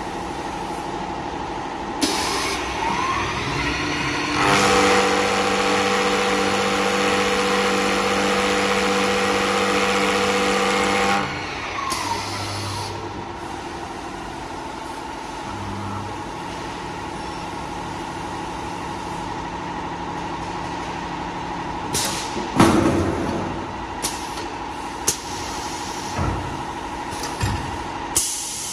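CNC wood lathe running, its motors humming steadily. For about six seconds in the middle the cutter bites into the spinning wood blank, a loud rough cutting noise over a steady whine, then it drops back to steady running. Near the end come several sharp knocks and short bursts of hiss from the machine.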